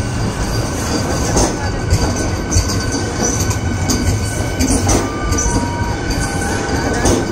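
Indian Railways Train 18 (Vande Bharat) electric trainset rolling slowly along a station platform: a steady rumble of wheels on rail with irregular clicks and a few short, thin wheel squeals about two-thirds of the way through.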